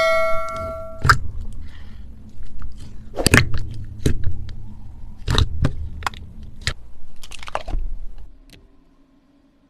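A bell-like ding fades out in the first second. It is followed by handling noises: about six sharp clicks and knocks spread over several seconds, with light rustle and a low rumble between them, before the sound dies away near the end.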